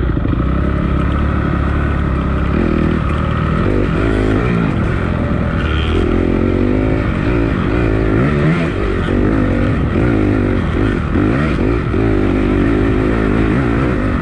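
Dirt bike engine revving up and down under load on a hill climb, its pitch rising and falling every second or so as the throttle is worked.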